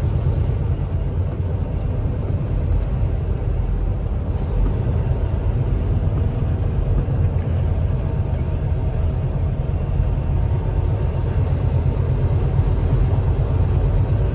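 Steady low rumble of a semi-truck's diesel engine and tyres on the road at highway speed, heard from inside the cab.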